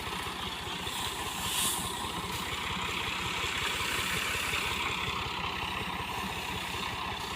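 Engine of farm machinery running steadily at a fast, even beat, with a brief hiss about a second and a half in.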